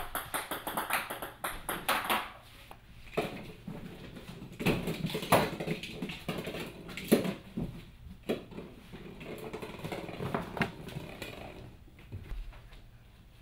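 Small light plastic balls clattering, bouncing and rolling on a hardwood floor, with kittens' paws scampering after them: irregular clicks and knocks, a few of them sharper.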